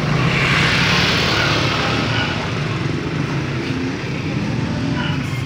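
A motor running with a steady low hum, with a loud hiss for about two seconds near the start.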